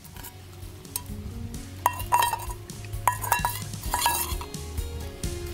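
A metal spoon stirring in a small metal cook pot, with about half a dozen ringing clinks against the pot between about two and four seconds in. Soft background music comes in underneath.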